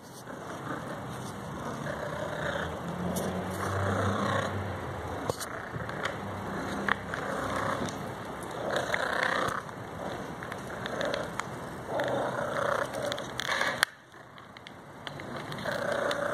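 Domestic cats meowing several times at close range, with scattered short clicks.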